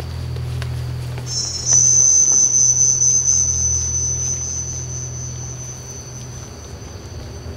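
A steady high-pitched whine that starts suddenly about a second in and slowly fades, over a low steady hum.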